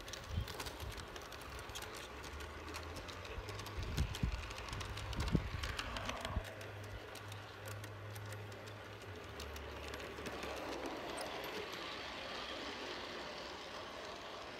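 G scale model train rolling along its outdoor track, wheels clicking over the rail joints with a low steady hum underneath; the clicks thin out after about six seconds into a steadier rolling noise.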